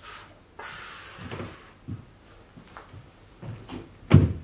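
Rustling and a series of dull knocks and thumps from a person moving about and getting down onto a stage floor, the loudest thump about four seconds in.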